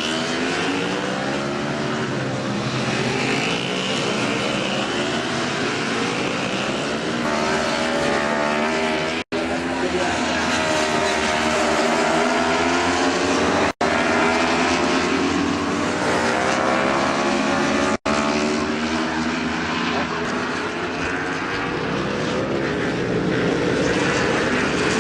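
Racing motorcycle engines at high revs on track, the engine notes rising and falling as the bikes accelerate, shift and pass. The sound breaks off for an instant three times.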